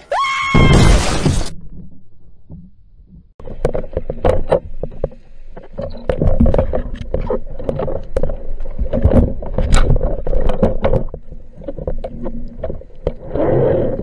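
Underwater sound from a spearfisher's camera in the sea: a loud rushing burst about half a second in that fades over about two seconds, a short lull, then dense crackling clicks over a low rush of water as the diver moves.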